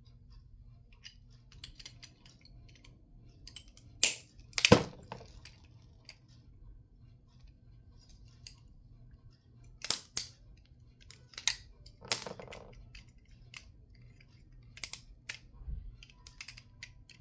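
A plastic part inside a radio being pried and snapped off: scattered clicks and cracks, with the loudest snaps about four to five seconds in and a few more around ten to twelve seconds in.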